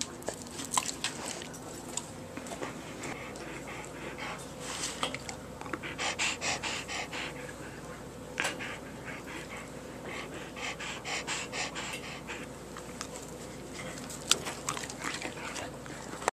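A dog panting in quick rhythmic runs of about four breaths a second, with scattered sharp clicks between the runs.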